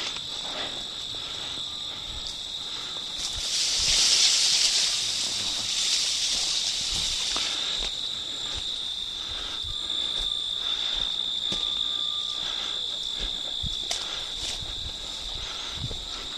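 Insects chirring outdoors: a steady high drone that swells louder about four seconds in, with faint footstep clicks underneath.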